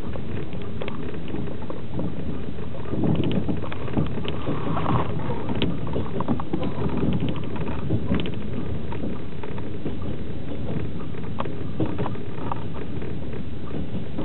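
Passenger train running at speed, heard inside a platzkart sleeper carriage: a steady low rumble of wheels on the track, with scattered clicks and rattles. It swells a little about three seconds in.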